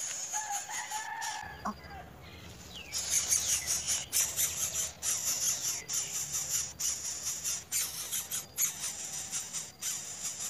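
A bird's call lasting about a second and a half, starting shortly after the beginning. A steady low hum follows, then a steady high hiss from about three seconds in.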